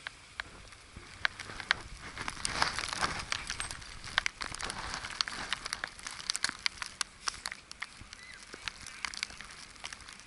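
Footsteps crunching through snow: a run of irregular crackling crunches and clicks, densest a couple of seconds in.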